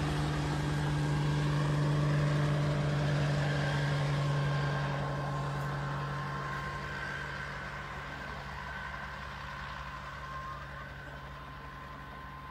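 Crop-dusting helicopter's engine and rotor drone, a steady low hum that fades slowly as the helicopter flies off over the field.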